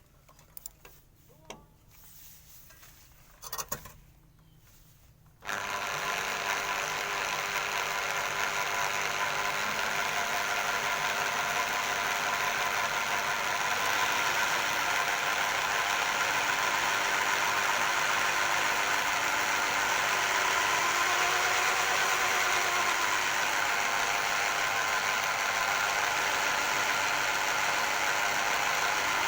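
Quiet with a few small clicks, then about five seconds in the washing-machine-motor generator rig starts running abruptly and keeps running steadily with a dense mechanical hum.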